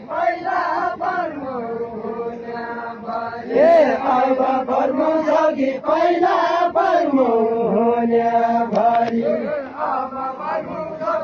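A large crowd singing a chant together in unison, voices holding long drawn-out notes that move up and down in steps.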